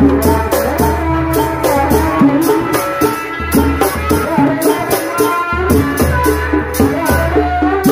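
Tanji band music for kuda renggong: drums and percussion keep a steady, fast beat under a melody.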